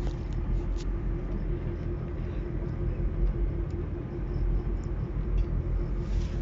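Fishing boat's engine running steadily: a low rumble with a constant hum over it.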